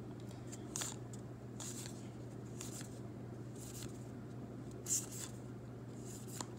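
Baseball cards being slid one behind another in the hand, a faint swish about once a second, over a low steady hum.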